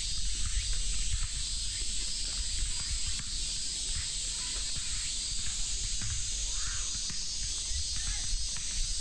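A steady cicada chorus, an even high hiss, with a low rumble underneath.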